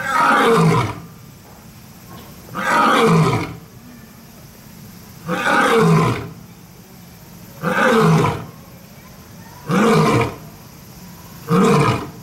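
Male lion roaring: six loud calls, each falling in pitch, coming quicker and shorter as the bout goes on.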